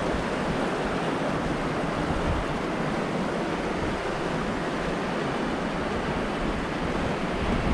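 Steady rushing of a fast-flowing mountain river, an even hiss without breaks or pitch.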